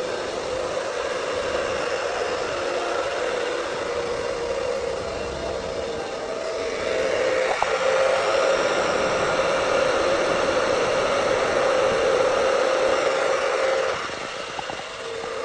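Small gas flame burning at the tip of a thin metal tube, a steady hissing rush with a wavering low whistle. It grows louder about seven seconds in and drops back shortly before the end.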